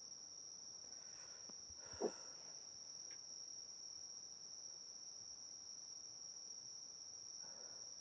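Night insects trilling in one steady, high-pitched continuous tone. One short knock sounds about two seconds in.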